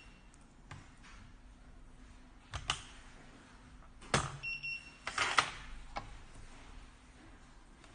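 Smart door lock working after a remote unlock: the latch and handle click a few times, with a sharper knock about four seconds in. A short broken electronic beep from the lock follows, then a brief rattle.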